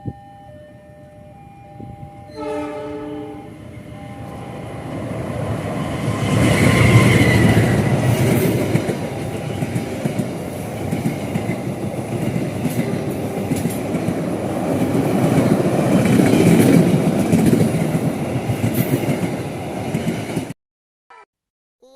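A train sounding its horn, two short toots at the start and a short multi-tone chord about two and a half seconds in. The train then passes close by: a building rumble and the clatter of wheels over the rail joints, loudest about seven seconds in, which cuts off suddenly near the end.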